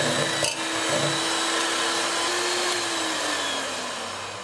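Electric hand mixer running steadily, its twin steel beaters whipping chilled cream in a steel pot, with a steady motor whine. There is a brief click about half a second in. Toward the end the whine sinks in pitch and level.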